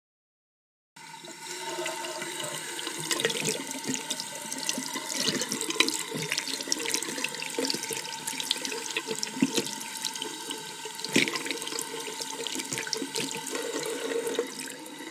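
Tap water running and splashing into a sink, starting about a second in and going on steadily with small irregular splashes.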